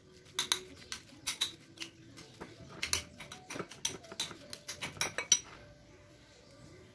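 Metal spoon clicking and scraping irregularly against a bowl while stirring mashed tofu, stopping about five seconds in.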